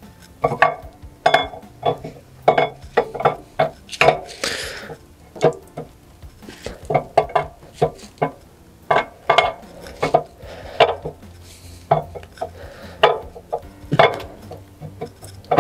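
A new steel camshaft being slid slowly by hand into a 5.7 Hemi engine block, its lobes and journals clinking and knocking against the cam bearing bores: irregular metallic clinks, a few a second, some with a short ring.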